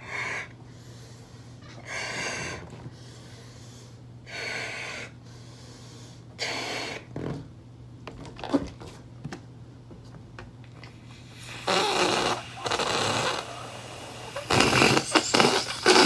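A latex balloon being blown up by mouth, in short puffs of breath about every two seconds. Near the end, air rushes and sputters out of the balloon's neck, loudly.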